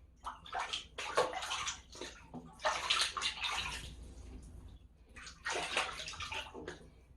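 Water splashing and pouring in three bursts while a kitten is bathed in a tub or basin.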